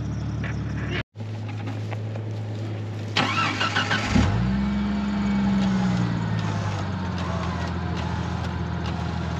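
A vehicle engine cranks for about a second, catches about four seconds in and revs up, then eases back toward a steady idle, over the hum of an engine already running.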